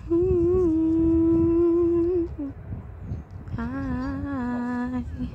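A person humming slowly in long held notes: one note held for about two seconds, a short break, then a lower note with a small wobble near the end.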